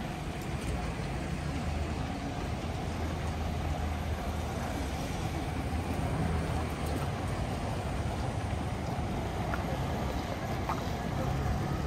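Steady city street traffic noise, a low engine rumble with no distinct single event.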